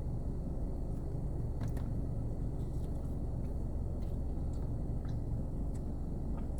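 Steady low background rumble, with a few faint clicks and crunches of bread being bitten and chewed.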